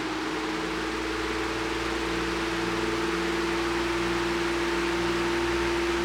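1989 Galaxy 16-inch oscillating table fan (model 2151) running, its motor giving a loud, steady hum over the rush of air from the blades.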